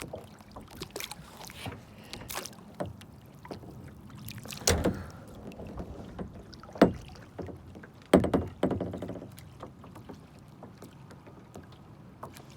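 Kayaking on the water: irregular clicks and knocks from the kayak and its gear, with sharp thumps about 5, 7 and 8 seconds in.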